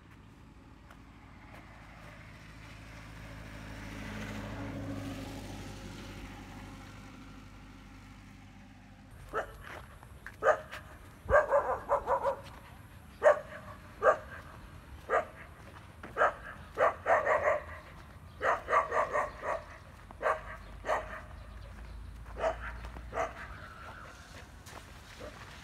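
A vehicle engine passes, swelling louder and then fading over the first several seconds. After an abrupt change about nine seconds in, a dog barks and yips in many short bursts, some in quick clusters.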